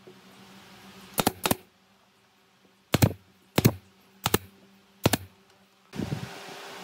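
Pneumatic brad nailer firing six times into pine boards: two quick shots, then four more roughly two-thirds of a second apart. Near the end the sound changes to the steady hiss of a fan, with a few low wooden knocks as a board is handled.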